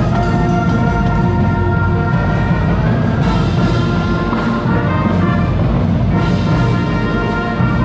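A school pep band playing: brass horns hold loud notes over a pounding bass drum and other drums.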